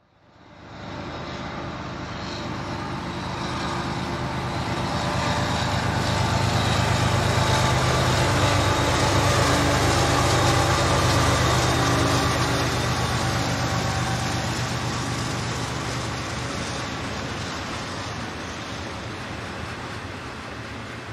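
Diesel locomotives of a Norfolk Southern freight train working hard up a grade. Their engines grow louder as they approach, are loudest about halfway through, then slowly fade as the stack container cars follow.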